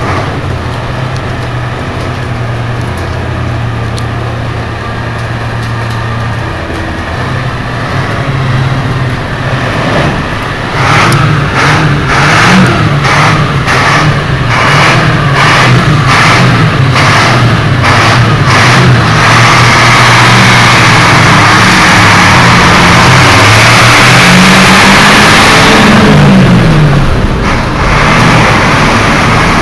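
Heavy vehicle engines running, with an engine revving up and back down near the end. Midway there is an even beat of about one and a half strokes a second, and a loud rushing hiss fills most of the last third.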